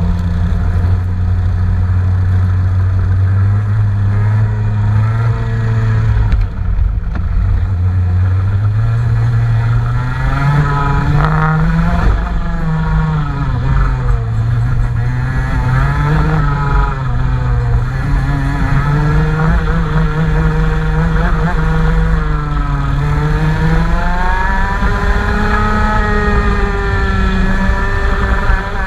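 Engine running under test: it runs at a low, steady speed for the first several seconds, then is revved up and back down in slow swells, rising and falling every few seconds.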